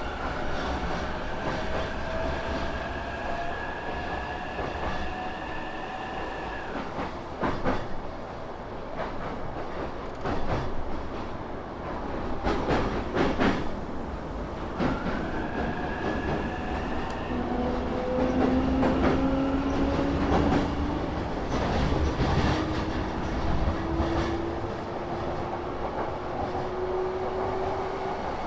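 Yamanote Line electric train running, heard inside the passenger car: steady running noise with a motor whine that slowly rises in pitch as the train gathers speed. In the middle comes a run of sharp clicks and clatter from the wheels crossing rail joints and points.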